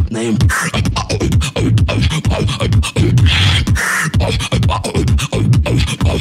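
Beatboxing into a handheld microphone: a fast, dense run of sharp vocal clicks and deep kick-drum sounds that drop in pitch, with a hissing snare-like burst about three seconds in.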